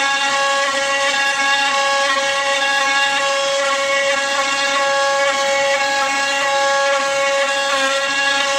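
CNC router spindle running steadily with its bit milling into a wooden chopping board: a steady whine over the noisy hiss of the cut.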